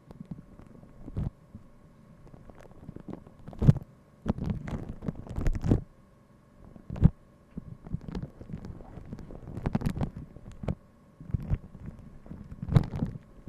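Close-microphone ASMR handling sounds: irregular taps and clicks mixed with short bursts of rustling and low thumps, over a faint steady hum.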